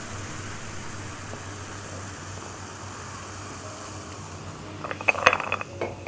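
Carbonated soda fizzing as it is poured from a can into a glass, a steady hiss that slowly fades. About five seconds in come a few sharp clinks and knocks as the can and glass are handled.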